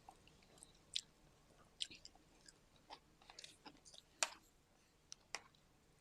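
Faint, close mouth sounds of someone chewing sushi: scattered wet clicks and smacks, the loudest about four seconds in.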